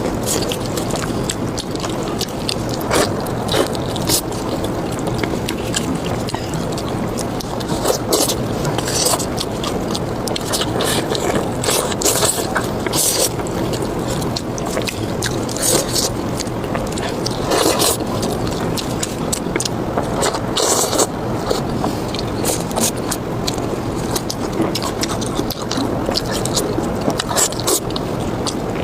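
Close-miked eating sounds: spicy pork belly being chewed steadily, with frequent sharp clicks and scrapes of utensils or teeth.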